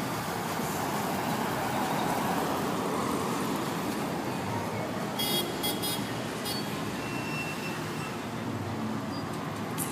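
Road traffic through a busy intersection: cars and motorcycles passing in a steady mix of engine and tyre noise, with a few brief sharp sounds about five seconds in.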